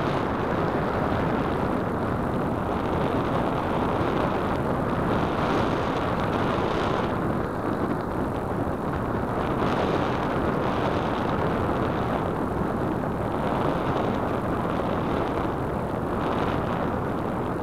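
Steady rush of airflow over the microphone of a keychain camera mounted on a Radian RC glider in flight, with no motor tone.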